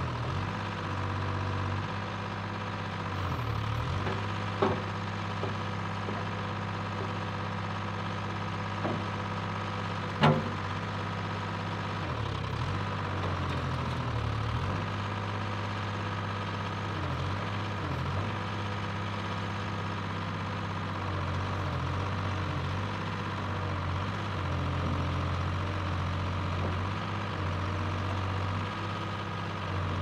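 Dynahoe 160 backhoe's engine running steadily while the boom and bucket dig. Two sharp knocks from the bucket come about four and a half seconds in and, louder, about ten seconds in.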